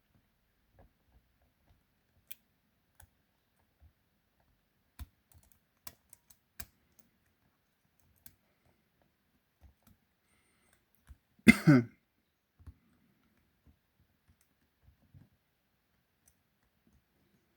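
Scattered small metallic clicks of lock picks and tension tool working in a padlock's pin-tumbler cylinder, irregular and a few at a time. About two-thirds of the way through comes one short, much louder noise lasting about half a second.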